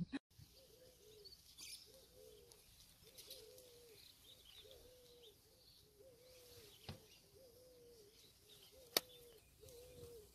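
A dove cooing faintly, a short low arched note repeated about once a second throughout. Two sharp clicks cut in, one about two-thirds of the way in and a louder one near the end.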